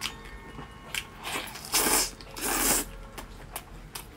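Close-up eating sounds of a person chewing braised lamb shank meat: scattered wet mouth clicks, with two louder, longer noisy bites or sucks about two seconds in.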